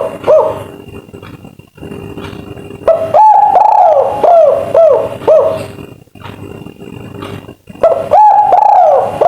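Albino spotted dove (tekukur) of the 'kuk 3' song type cooing in repeated phrases. Each phrase opens with a longer arched coo followed by several shorter rounded coos. One phrase ends just after the start, another comes about three seconds in, and a third begins near the end, with pauses between them.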